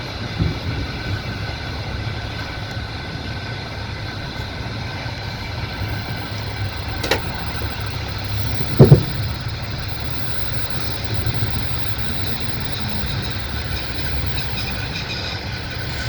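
Passenger train carriage running on the track with a steady rumble. There is a sharp click about seven seconds in and a loud double knock about nine seconds in, as the wheels knock over the rails.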